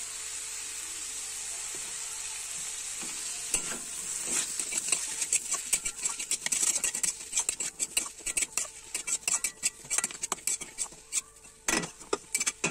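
Boiled potato cubes and spice masala sizzling in a kadai, then from about three and a half seconds in a spatula stirring and scraping against the pan in quick repeated strokes over the sizzle.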